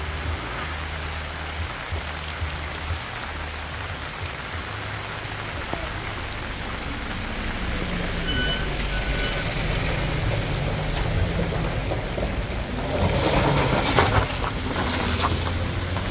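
Heavy vehicle engine running on a steep uphill climb, a low drone that grows louder. Brief high tones sound about halfway, and a loud burst of hissing comes near the end.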